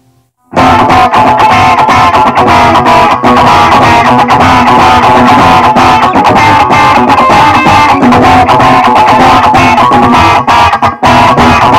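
Loud punk rock song with electric guitar and bass, kicking in suddenly about half a second in and breaking off briefly near the end before coming straight back.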